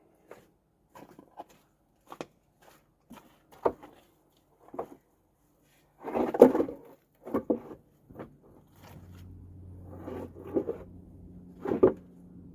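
Scattered knocks and clunks of bluestone pieces being set and wedged into a loose pallet to tighten it, the loudest cluster about six seconds in. A low steady hum comes in about nine seconds in.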